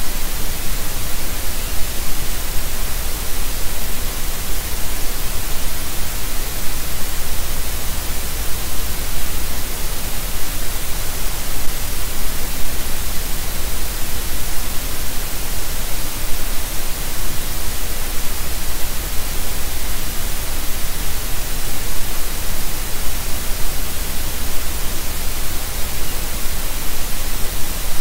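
Steady, loud static hiss from the nest camera's audio feed, even and unchanging, with no bird calls or other sounds standing out.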